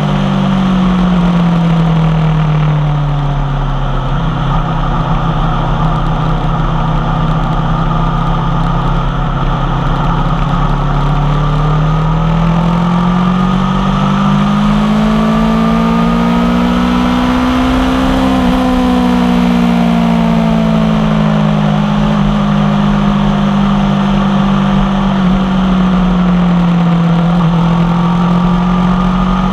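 2016 Aprilia Tuono V4 1100 Factory's V4 engine through an unbaffled Tech 1 carbon M4 exhaust, under way on the road. The revs drop over the first few seconds, hold steady, climb for several seconds to a peak a little past halfway, then fall back and settle.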